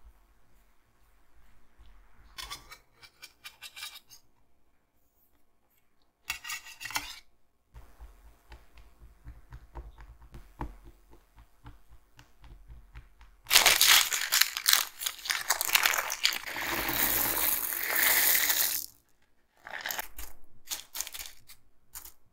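Baking paper being crumpled and rustled for about five seconds, loud and crackly, then a run of sharp clicks as pie weights are poured into the paper-lined tart case. Faint taps of a fork pricking the dough come before.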